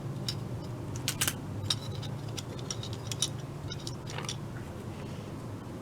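Scattered small clicks and light ticks as solder wire is worked against a soldering iron's tip, over a low steady hum.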